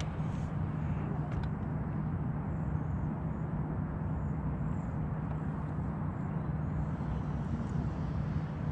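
Electric bow-mounted trolling motor running with a steady low hum over a soft even hiss.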